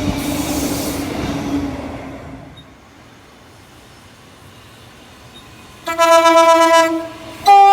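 Train running past, fading away over the first two seconds or so. After a lull, a train horn sounds a loud blast of about a second, then a second, higher-pitched blast begins near the end.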